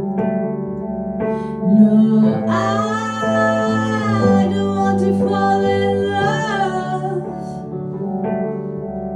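A woman singing a slow ballad over guitar accompaniment, holding two long notes with vibrato.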